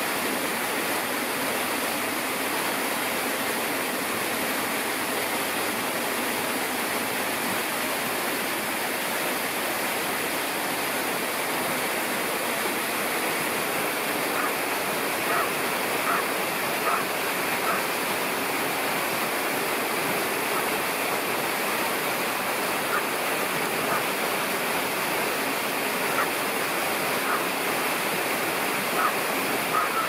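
Steady rushing of falling water, as from an aviary waterfall, even and unbroken throughout. From about halfway on, a few short high notes briefly stand out above it.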